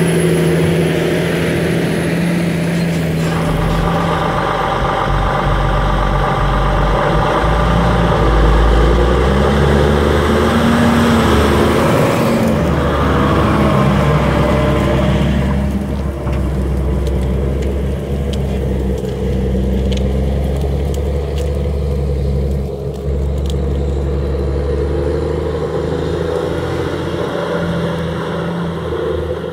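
Case IH Steiger 450 HD tractor's diesel engine running steadily under load while pulling a disc ripper through the soil. It passes close by, then moves off and sounds duller and slightly quieter from about halfway.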